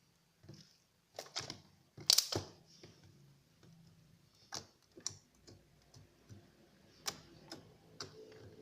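Hands playing with a thick, stretchy cream-cheese-textured slime, giving irregular sticky clicks and pops, with the loudest cluster of crackles about two seconds in.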